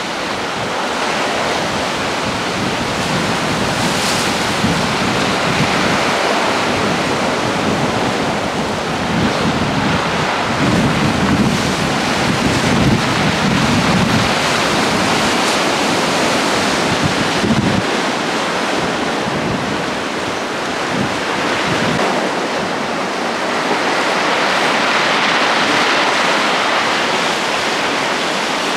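Sea surf washing onto a rocky shore, a steady rush of water, with wind buffeting the microphone.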